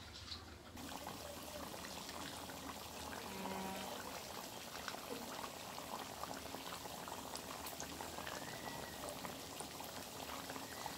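Potato-poha fingers deep-frying in a kadhai of only moderately hot oil: a soft, steady sizzle and bubbling that sets in about a second in.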